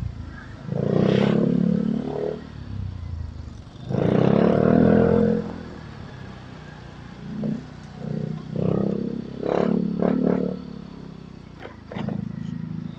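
Motorcycle engine heard from the rider's seat, running under way and pulling hard in several surges a few seconds apart.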